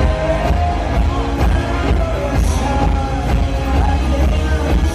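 Live rock band playing a song: drums keeping a steady beat under acoustic and electric guitars and bass.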